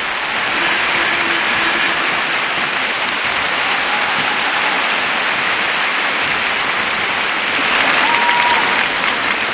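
Large arena crowd applauding steadily, swelling a little near the end.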